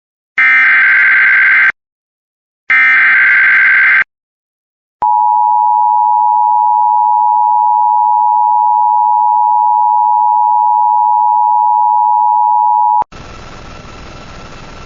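Emergency Alert System (SAME) header: two screeching digital data bursts about a second apart, then, after a pause, the two-tone attention signal (853 and 960 Hz) held steady for about eight seconds before cutting off into a steady hiss.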